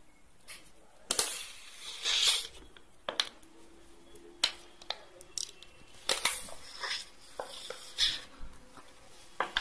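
Folded paper balloon being handled and pressed into shape: paper crinkling and rustling with sharp crackles. Near the end comes a short rush of breath as it is blown into to inflate it.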